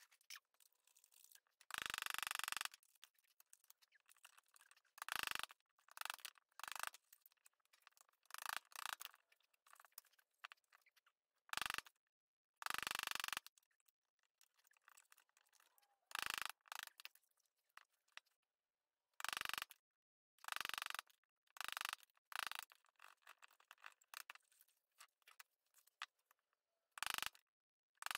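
Bench chisel pushed by hand through reclaimed timber, paring out waste between saw kerfs: a dozen or so short, irregular scraping cuts, each under a second, with quiet gaps between.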